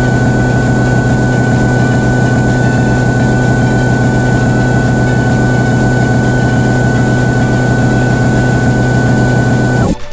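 Simulated CNC milling machine sound from the Swansoft simulator while the program runs: a steady machine hum with a thin high whine over it, cutting off suddenly near the end as the milling finishes.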